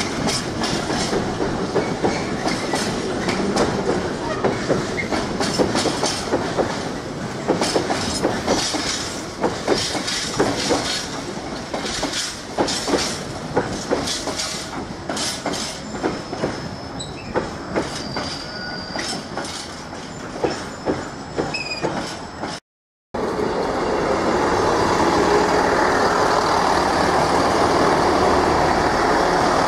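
Train wheels clattering over rail joints and pointwork, with a faint high wheel squeal partway through, as an intermodal container freight train passes. After a cut near the end, an East Midlands Railway Class 158 diesel multiple unit runs into the platform with a steady, louder engine and rolling noise.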